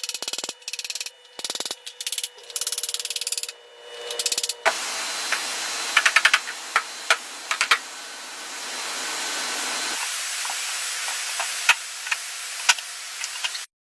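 Workshop tool noise: a few short choppy clips of a buzzing tool, then a steady hiss with sharp clicks and knocks scattered through it, which cuts off suddenly near the end.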